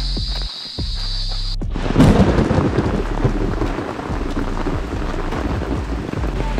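Heavy rain pouring down, starting abruptly about two seconds in with a loud burst, then falling steadily.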